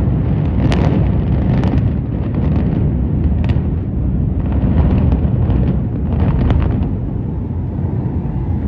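Controlled explosive demolition of a high-rise tower pair: a deep, continuous rumble of the blast and collapse, broken by about five sharp cracks, easing off near the end.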